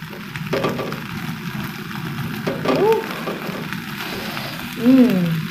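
Banana-leaf parcels of fish sizzling and crackling over an open gas-burner flame: a steady hiss with scattered small crackles. Two short gliding pitched sounds come through about three and five seconds in, the second the loudest moment.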